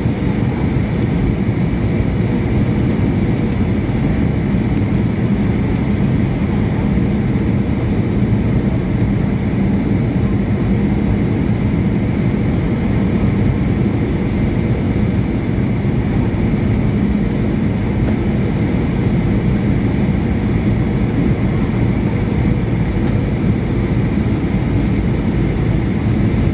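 Steady cabin noise inside a Boeing 737-800 descending on approach: the hum of its CFM56-7B turbofan engines and the rush of air past the fuselage, heard from a window seat over the wing, with a few steady tones running through it.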